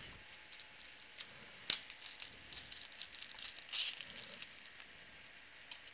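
Crinkling and rustling of packaging being handled by hand, with a single sharp click a little under two seconds in and a busier stretch of rustling in the middle.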